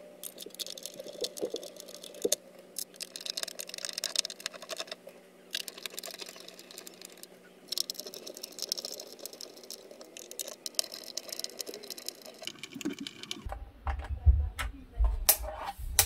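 Plastic case of a ZX Spectrum Next being closed up and screwed together by hand: dense rapid clicking and scratching in bursts. From about three-quarters of the way in, dull thumps and a few knocks as the case is handled on the desk.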